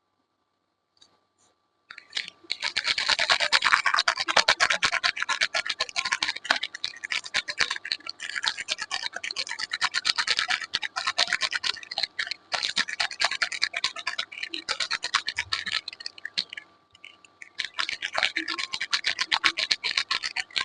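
Dense, rapid scratching starting about two seconds in, pausing briefly near the end and starting again, from hands working on soap or its packaging in close-up.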